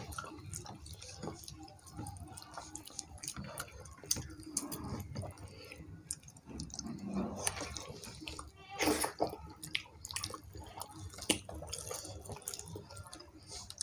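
Wet smacking and squishing of two people eating soft khichuri by hand, fingers mixing the rice on their plates, as a scatter of small clicks, with a louder cluster about nine seconds in.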